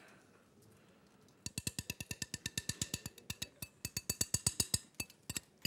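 Metal spoon clinking rapidly against a small glass bowl, about nine light taps a second, as herb-and-oil dressing is spooned out of it; the run starts about a second and a half in and stops shortly before the end.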